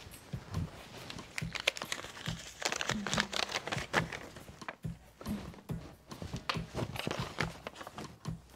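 Paper rustling and crinkling as a rolled sheet is pulled from a tube and unrolled by hand: a run of irregular crackles.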